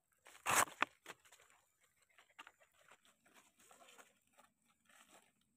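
Short rustling scrape about half a second in, then a sharp click and faint scattered ticks and rustles: hands and a small knife working on a wild mushroom among dry leaf litter.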